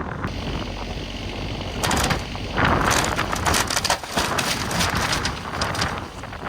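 Wooden cabin walls and framing cracking, crunching and splintering as the building is pulled down, over a steady low engine hum. The crunching is densest from about two seconds in.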